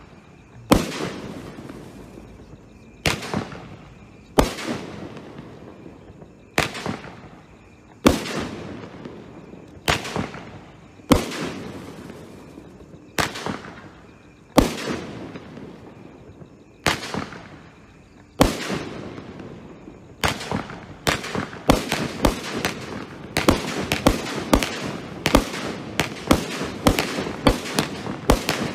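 Brothers Pyrotechnics "Fierce" Cat F2 Roman candle combination firing: a series of sharp shots, each with a fading tail, one every second or two. About twenty seconds in the shots speed up to several a second.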